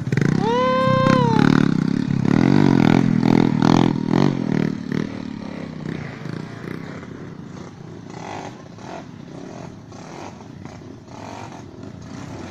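Trail motorcycle engine revving hard as the bike claws up a muddy rut, its pitch rising and falling with the throttle, then dropping away after about five seconds as the bike moves off. A short high wail sounds about half a second in.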